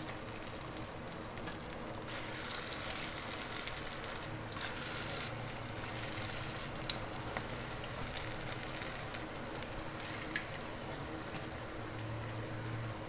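Moong dal pakodas deep-frying in hot oil in a kadhai, a freshly added batch of batter: a steady sizzle with a couple of small crackles.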